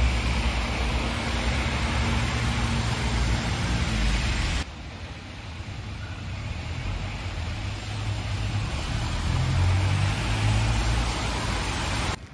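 Road traffic on a wet, slushy city street: cars running and their tyres on wet asphalt. The sound drops suddenly to a quieter traffic hum about a third of the way through, then swells again as another vehicle passes.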